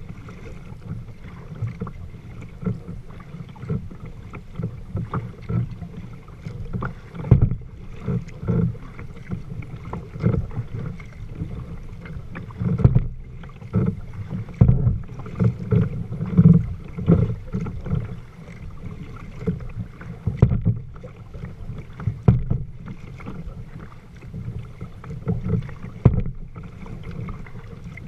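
Water sloshing against a kayak's hull as it moves on calm water, with irregular sharper slaps every second or two over a steady low rumble.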